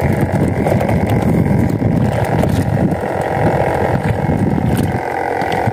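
Steady low rumble of a boat engine running.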